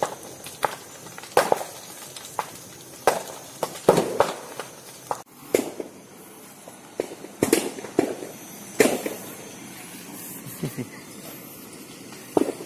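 Burning green bamboo culms bursting one after another in a series of sharp, irregular bangs, more than a dozen in all, coming less often in the second half with one more near the end. Each bang is a sealed internode of the live bamboo splitting as the air and steam trapped inside expand in the heat.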